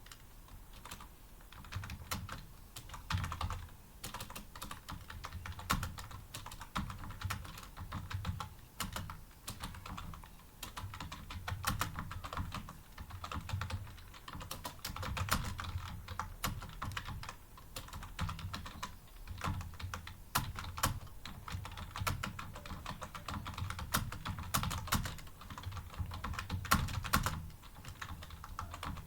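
Fast, continuous typing on a computer keyboard: a dense, uneven patter of keystrokes with scattered louder strokes during a timed typing test.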